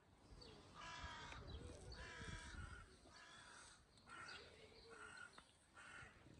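A bird giving a series of about six faint, harsh calls, one every second or so.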